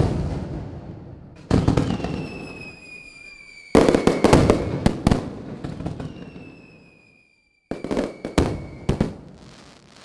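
Fireworks going off: sudden bangs at the start, about a second and a half in, near four seconds and again around eight seconds, each followed by crackling that dies away. Between the bursts a high whistle falls slightly in pitch.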